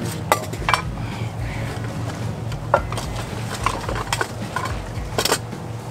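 Metal camp cookware being handled while a backpacking stove is set up for coffee: several sharp clinks and knocks, with a quick cluster near the end, over a steady low hum.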